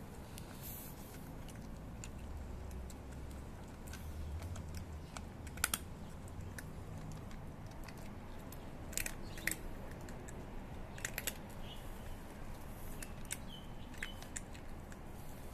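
Cat crunching dry kibble: scattered sharp crunches at an uneven pace, over a low background rumble.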